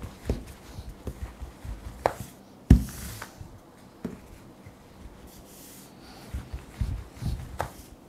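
A long, thin wooden rolling pin rolls and rubs over a thin sheet of pastry dough on a plastic tablecloth, with hands pressing and a few knocks of the pin. The loudest is a single thump about two and a half seconds in.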